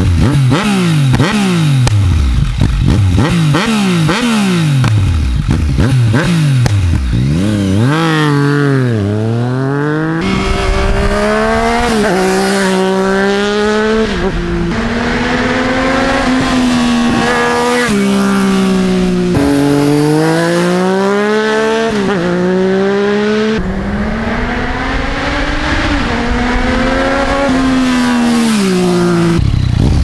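Yamaha MT-09 inline-triple engine through an Akrapovič full carbon exhaust, blipped repeatedly at a standstill for the first several seconds. The bike then accelerates away, the revs climbing and dropping with each gear change, and it is ridden back toward the listener near the end.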